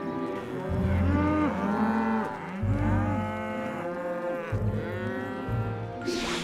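Several cartoon cows mooing, long moos overlapping one another, with a short whoosh near the end.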